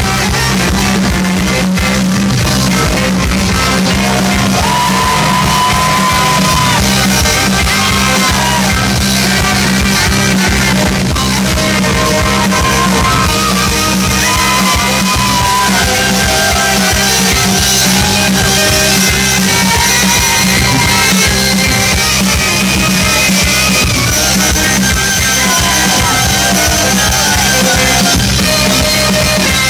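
Rock band playing live and loud: saxophone over electric guitar, bass guitar and drums, with a steady bass line and held melodic lines on top.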